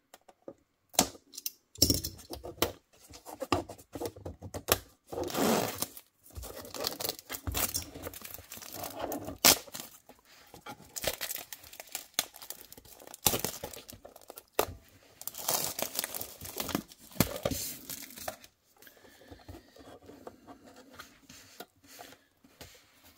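Thin plastic protective film being peeled off model parts and plastic wrapping crinkled by hand, in irregular bursts of tearing and crinkling that grow quieter in the last few seconds.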